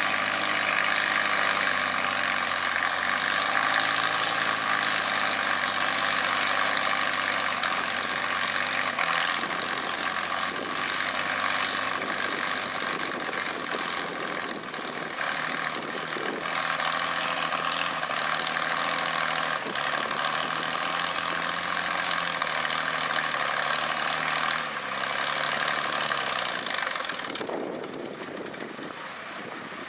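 International Harvester farm tractor's engine running hard under full load as it drags a weight-transfer pulling sled, its pitch sagging slightly late on; near the end the engine eases off and the sound drops.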